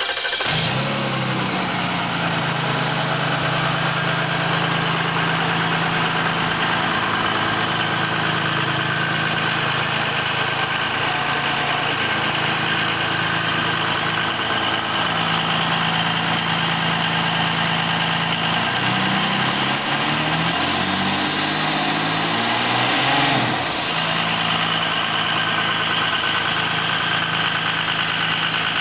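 International VT275 V6 turbo diesel idling steadily, revved up and down a few times about two-thirds of the way through, then settling back to idle.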